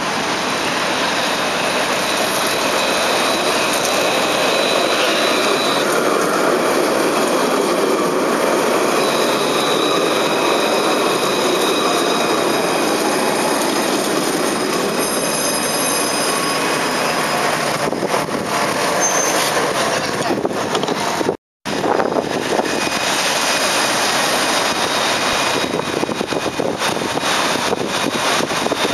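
Alstom Citadis electric tram passing close alongside, a steady rolling rumble with thin high whines over it. The sound drops out for an instant about two-thirds of the way through, then the rolling noise continues.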